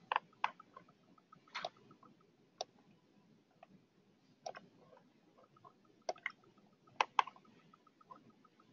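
Computer mouse and keyboard clicks: about a dozen sharp, single clicks at irregular intervals.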